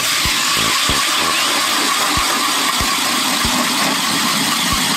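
Electric drill spinning an ice auger, boring steadily down through the ice with a continuous whirring and grinding of cutting ice. It starts abruptly and holds an even level, set in plain drill mode rather than hammer mode.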